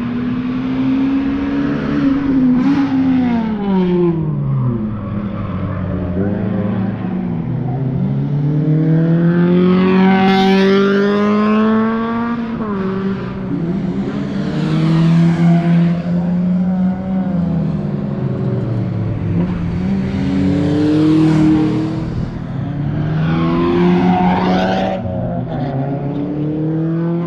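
Mazda MX-5's four-cylinder engine under hard driving, the revs climbing and dropping again and again as it accelerates and slows.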